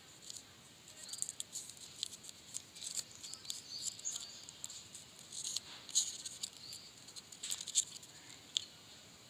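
Foil wrapper of a chewing-gum stick crinkling as fingers peel it open: a run of light, irregular crackles, with a few sharper ones in the second half.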